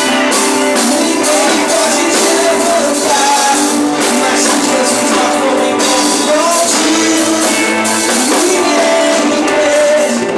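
Live worship band playing: a singing voice over sustained chords, with a tambourine or cymbals keeping a steady beat.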